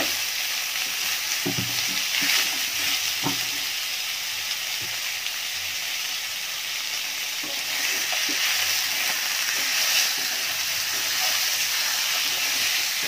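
Raw chicken thigh pieces sizzling steadily in hot oil with golden-fried shallots and garlic in a wok. A spatula stirs them, knocking and scraping against the pan a few times.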